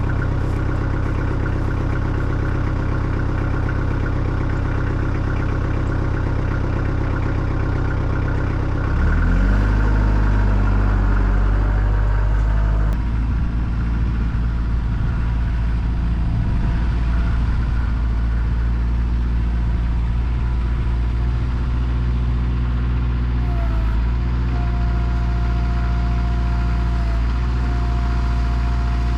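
Kubota L48 tractor loader backhoe's diesel engine running steadily; about nine seconds in its note changes and gets a little louder, as if taking on throttle or load. A steady whine joins in near the end.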